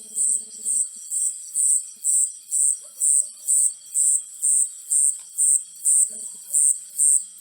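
Insect chirping in an even rhythm, about two high-pitched chirps a second, with faint low sounds now and then.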